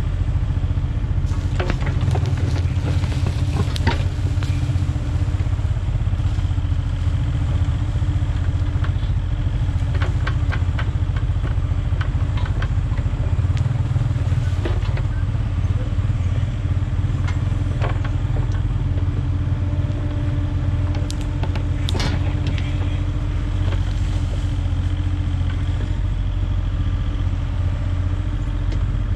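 Compact excavator's diesel engine running steadily under hydraulic load, with scattered clanks and scrapes as the bucket digs into and dumps soil.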